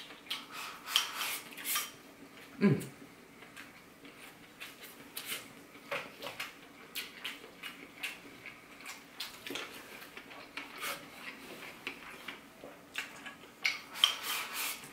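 Chopsticks clicking and scraping against a rice bowl as rice and fish are scooped from it, in short, irregular taps, with one louder knock about three seconds in.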